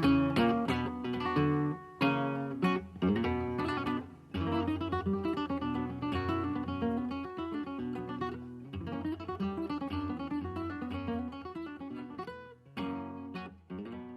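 Background music: acoustic guitar played with plucked and strummed notes, fading toward the end.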